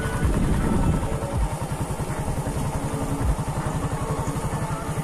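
Motorcycle engine running steadily at low speed, with a fast, even pulse.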